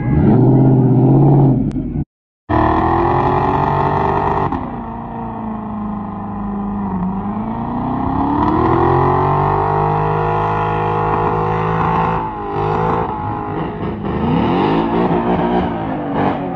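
Ford Mustang engines revving hard through burnout donuts, the pitch climbing and falling as the rear tyres spin and smoke. A brief cut to silence comes about two seconds in.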